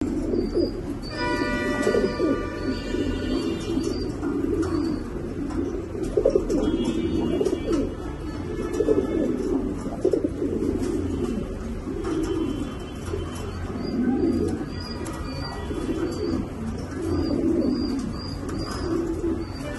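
Domestic fancy pigeons cooing, with low rolling coos repeating throughout. Short high chirps recur over them.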